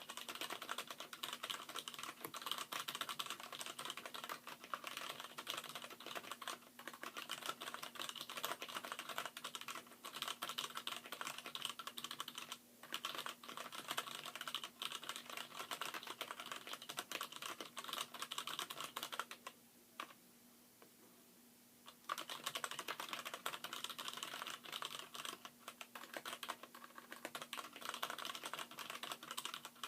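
Fast typing on a Poker X mechanical keyboard whose letter keys are Gateron Brown stems and springs in Cherry MX Black housings: a rapid, continuous clatter of keystrokes. It stops for about two seconds roughly two-thirds of the way through, then resumes.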